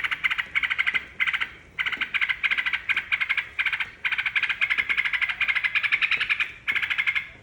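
Yellow-vented bulbul (trucukan) chattering: fast rattling runs of notes in bursts broken by short pauses, with one longer run about halfway through.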